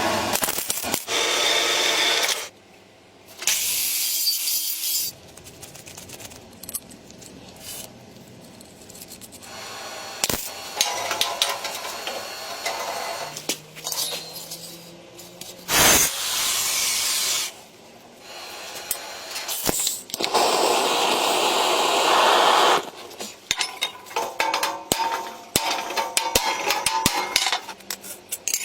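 Workshop tool noise: several loud, noisy bursts of a few seconds each, like sawing, scraping or abrasive cutting, with scattered knocks and clicks between them.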